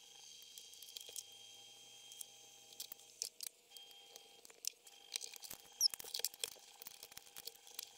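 Faint scattered clicks and light rustling from handling a computer keyboard and its small parts. The clicks get busier over the second half. Under them runs a steady faint hum.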